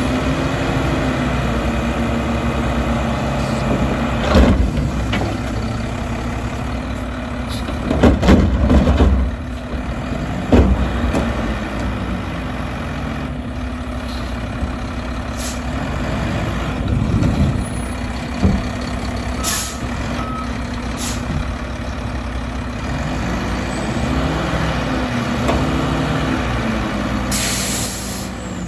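Mack LR front-loader garbage truck's diesel engine revving up and down to drive the hydraulic lift arms while a steel dumpster is held over the hopper and shaken, with several loud metal clunks as the container is banged to empty it. A short hiss of air comes near the end.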